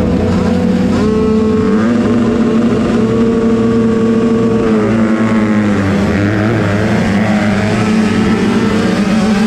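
Several motocross bike engines running at once, their pitches holding steady and then dipping and rising again about five to six seconds in.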